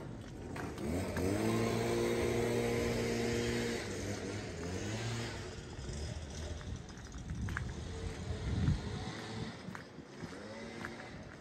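A motor vehicle pulling away: its engine note rises about a second in, holds steady for a couple of seconds, then fades. A sharp thump comes about two thirds of the way through, and another vehicle's note starts rising near the end.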